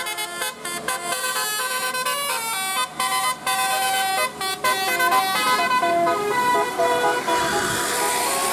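Indonesian telolet bus horn, a multi-tone bus horn, playing a quick tune of short stepped notes. A hiss grows in from about six seconds in.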